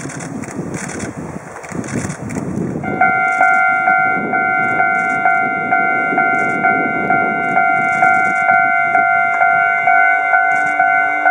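Railway level-crossing warning bell starting about three seconds in and ringing on in an even repeating ding at about two strikes a second, signalling an approaching train. Before it there is wind rumble on the microphone.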